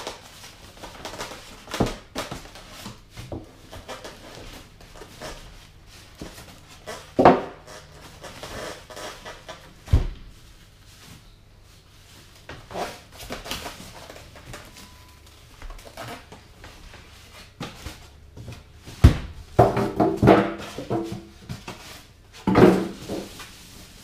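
Polystyrene foam packaging being pulled off a boxed PC case: foam squeaking and creaking against the case, a plastic bag rustling, and irregular knocks on a wooden tabletop, the sharpest about ten seconds in and again near nineteen seconds.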